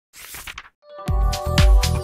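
A short whoosh, then electronic dance music starting about a second in, with a steady kick-drum beat about two a second under held synth tones.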